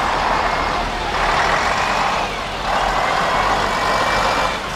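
Diesel engine of an Ikarus city bus running as the bus drives past close by, with a brief dip in the noise about halfway through.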